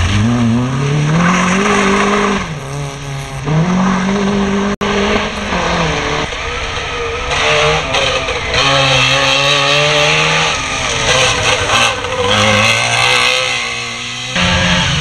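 Competition cars driven hard on a slalom course: a small hatchback's engine revs up, drops with a gear change and revs again. After an abrupt cut about five seconds in, a Trabant's two-stroke twin-cylinder engine revs up and down repeatedly as it is thrown through the course and passes.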